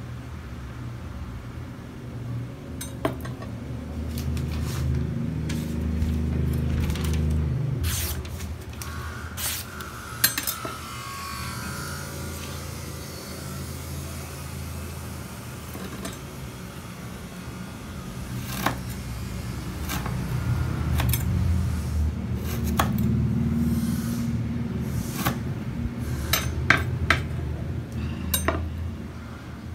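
Damascus-steel VG10 chef's knife slicing paper and chopping rope on a wooden cutting board: sharp knocks and clicks as the blade strikes the board, scattered through, with a rustle of paper about nine to twelve seconds in. A low rumble rises and falls in the background, loudest around five to eight and twenty to twenty-six seconds in.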